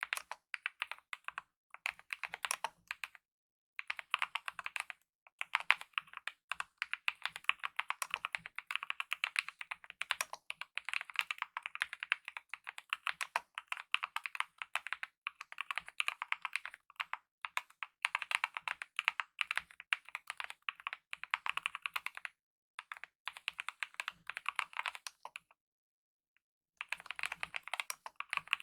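Kemove mechanical keyboard with lubed optical red linear switches and DSA-profile keycaps being typed on in fast runs of keystrokes, broken by brief pauses.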